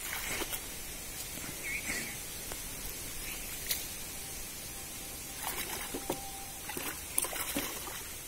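Shallow muddy pond water sloshing and splashing in short irregular bursts as hands grope through it for fish.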